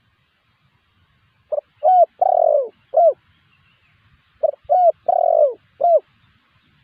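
Spotted dove cooing: two phrases of four low notes each, the third note the longest, with a pause of about a second and a half between them.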